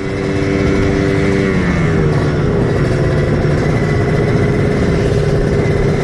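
Kawasaki Ninja two-stroke single-cylinder motorcycle engine running, its note dropping in pitch about two seconds in and then holding steady.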